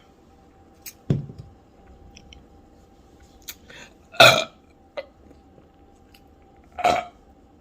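A person burping loudly after drinking a carbonated sparkling apple soda: three burps, a short low one about a second in, then the loudest about four seconds in and another near seven seconds.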